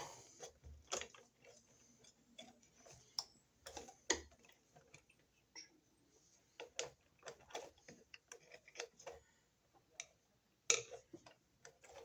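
Faint, irregular small clicks and scrapes of a plastic wire nut being twisted by hand onto a bundle of electrical wires to tighten the splice.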